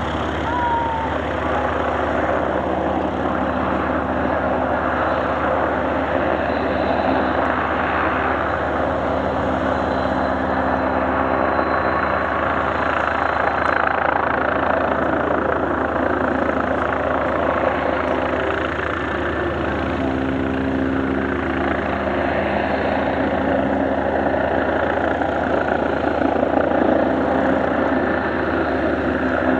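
Aircraft engine noise, steady and continuous, with a few held tones underneath.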